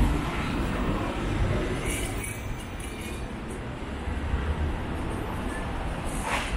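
Steady low rumble of city road traffic, cars and buses passing on a busy street, with a brief rising sound near the end.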